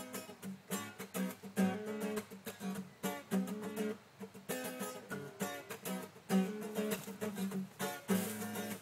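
Acoustic guitar strummed in a steady rhythm, as the backing of a song.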